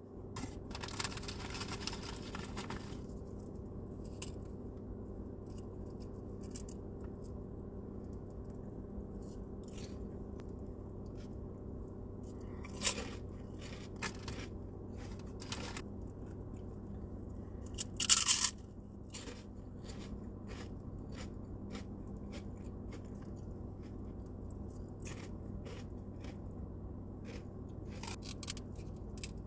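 Close-up crunching and chewing of pork rinds eaten with cottage cheese: many short crisp crunches and clicks, the loudest about 13 and 18 seconds in, over a steady low hum.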